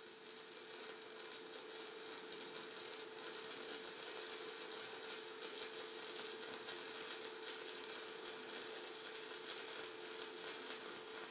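Welding arc crackling and sizzling steadily, a dense stream of fine pops over a steady hum.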